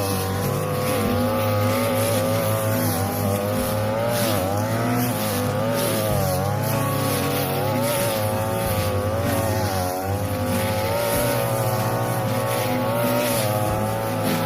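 42cc two-stroke brush cutter running at high speed, its pitch wavering and dipping briefly a few times as the blade cuts through tall, flattened cogon grass.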